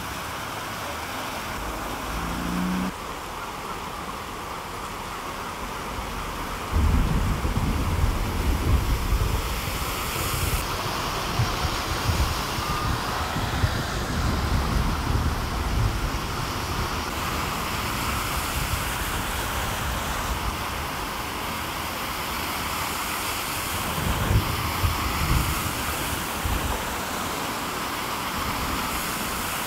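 Cars driving through deep standing floodwater, their tyres sloshing and throwing up spray, over a steady hiss of rain and running water. The low wash of passing cars is loudest from about a quarter of the way in and again near the end.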